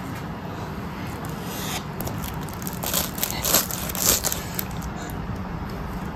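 A small knife cutting through the crisp, flaky crust of a cream-topped cinnamon roll, crackling and crunching in irregular bursts, loudest about three to four seconds in.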